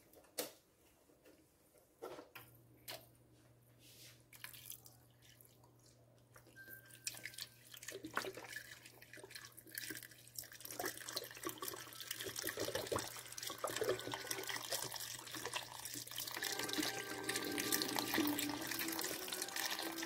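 Beef broth poured from a carton into a pot of browned ground turkey, diced tomatoes and green chilies, making a splashing stream. The pour starts several seconds in and grows louder toward the end, after a few light clicks.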